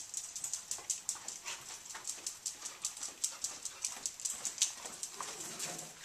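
A dog's claws clicking rapidly and lightly on a hard tiled floor as it moves about, several clicks a second.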